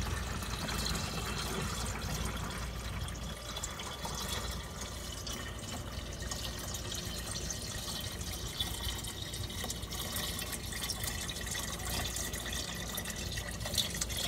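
Liquid poured in a steady stream from a plastic bowl into a pot of liquid, splashing and gurgling as it lands.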